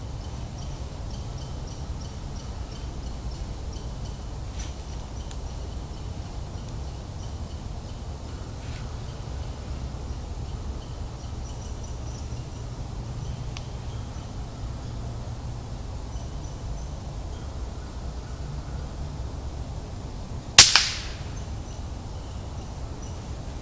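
A single suppressed shot from an EDgun Matador R3M PCP air rifle with a Ronin suppressor: one sharp crack about 20 seconds in with a brief fading tail. Before it there is only steady low background rumble with faint high chirps.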